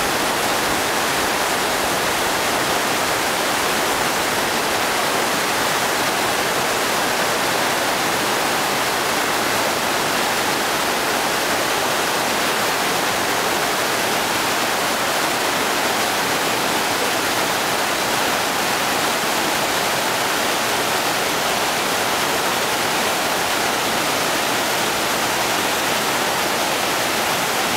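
The Sarca, a fast alpine river, rushing over boulders in whitewater: a steady, unbroken rush of water.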